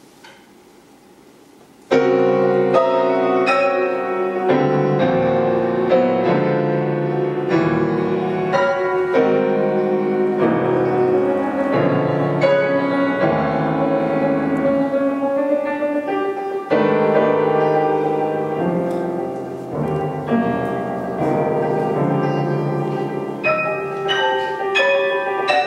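Solo grand piano playing a modern classical étude. After about two seconds of quiet, loud chords come in suddenly, followed by dense runs of struck chords and notes.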